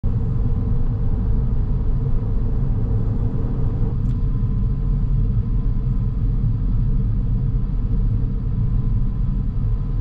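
Steady low rumble of a car driving, heard from inside the cabin: engine and road noise, with a light click about four seconds in.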